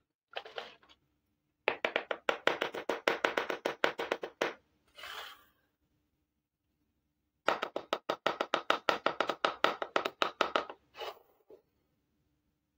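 Miniature plastic toy cooking pots and lids clicking and rattling in quick taps, about ten a second, in two runs of about three seconds each, with a short scrape after each run.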